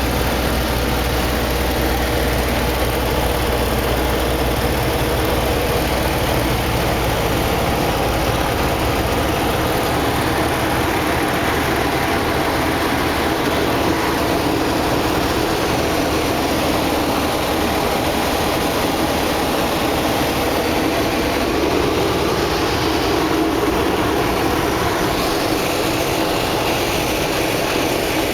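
Steady engine noise, with a deep rumble that drops away about eight seconds in.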